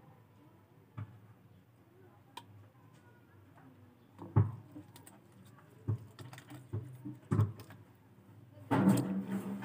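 Scattered light knocks and clicks as raw fish is picked over by hand above a plate, with a louder clattering stretch near the end.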